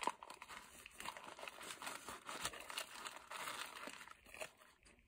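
Paper sandwich wrapper crinkling and rustling as the sandwich is handled, a dense crackle that begins with a sharp click and stops shortly before the end.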